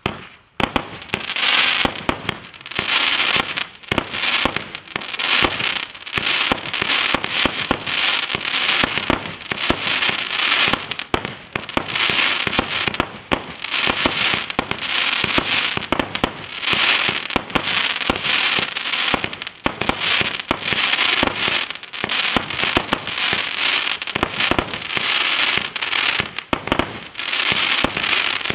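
Solar Fireworks Kruger Park, a 160-shot cake of 20 mm crackling bombettes, firing continuously. Rapid launch reports run under dense crackling from the bursting bombettes, which swells and fades every second or two.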